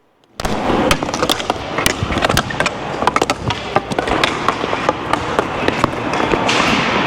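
Dek hockey play: many sharp clacks and knocks of sticks and ball on the plastic court, over steady scuffing and shuffling, starting suddenly about half a second in.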